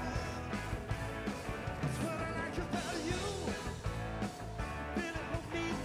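Rock-and-roll music with a steady drum beat, guitar and a singing voice.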